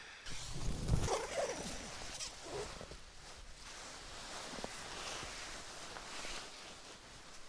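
A zipper being pulled and fabric rustling steadily as someone shifts about inside a tent, getting out of a sleeping bag.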